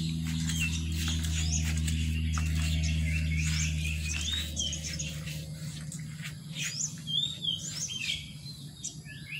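Small birds chirping over and over, with a steady low hum underneath for the first half that fades out about five seconds in.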